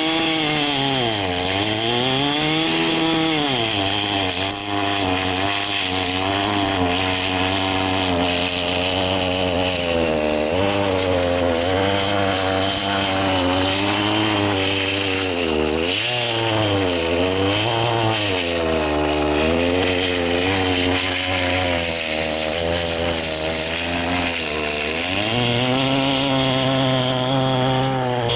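A large, old Husqvarna chainsaw, 42 pounds, running at full throttle in a long cut through a big log, ripping it lengthwise. The engine bogs down and picks up again many times as the chain loads and clears, and is steadier near the end.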